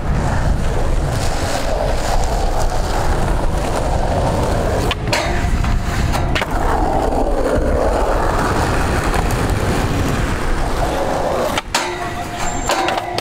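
Skateboard wheels rolling on concrete and trucks grinding along metal-edged ledges, with a few sharp clacks of the board hitting the ground.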